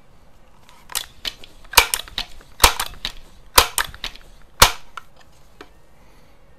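Crosman 2100 Classic multi-pump air rifle being pumped: four strokes about a second apart, each ending in a sharp plastic-and-metal clack as the pump arm snaps shut, with lighter clicks around them.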